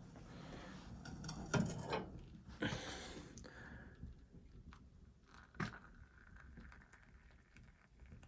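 Rustling and handling noises indoors, with three sharp knocks: two in the first three seconds and one more a little past halfway.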